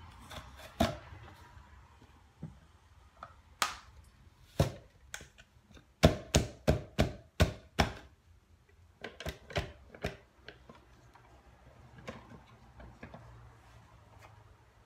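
Plastic French fry cutter pushed down through potato pieces to cut them into cubes: a series of sharp clacks and thunks, with a quick run of about six strikes in the middle and another cluster a little later.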